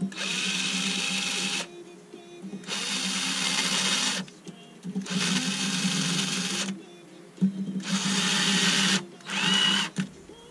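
Power screwdriver with a long hex bit running in five bursts of about a second and a half each, the last one shorter, as it drives in the socket-head cap screws on the flange of a milling-machine spindle housing.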